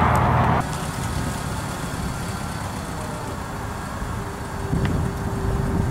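A loud rushing noise cuts off about half a second in. After it, the Jeep Wrangler TJ's engine runs at low speed as it crawls over a rutted dirt trail, a low rumble with a faint steady whine that comes in halfway through.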